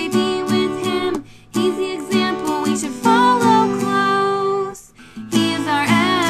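A woman singing over a strummed acoustic guitar, with two short breaks in the music.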